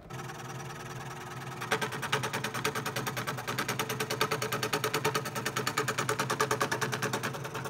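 Scroll saw running, its blade cutting through a pine board. A steady motor hum at first; from about two seconds in, the blade's strokes through the wood come as a fast, even chatter.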